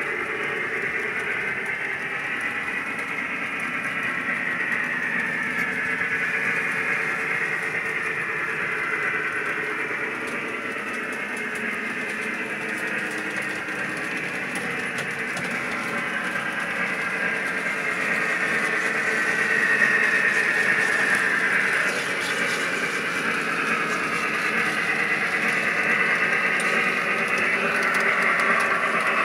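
O gauge model trains running on the layout: a steady mix of electric motor whine and wheels rolling on metal track, with pitches that drift slowly. It gets somewhat louder about two-thirds of the way through.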